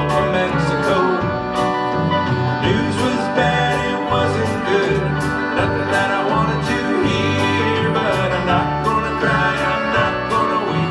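Live country band playing with a steady drum beat: acoustic and electric guitars, accordion and drums, in a stretch without lyrics between sung lines.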